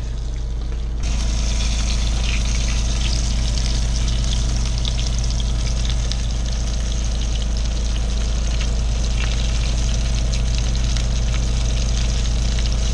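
Oil sizzling and crackling in a skillet as a whole floured yellow bullhead catfish fries in olive oil. The sizzle gets louder about a second in and then holds steady over a constant low hum.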